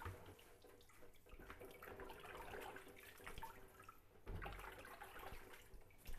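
Faint water sloshing and dripping as wet red amaranth greens are scooped out of a bucket of washing water into a plastic colander, with a dull bump a little after four seconds.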